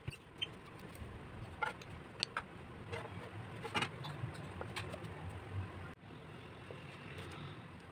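A low steady hum with scattered soft clicks and taps, like small kitchen handling noises.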